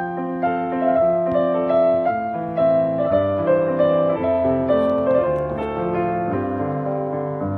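Background instrumental music: a keyboard melody of held notes over a lower accompaniment, with deeper bass notes coming in about three seconds in.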